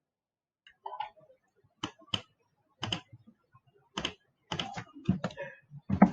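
Computer keyboard typing: irregular single keystrokes and short runs of keys, with pauses between them.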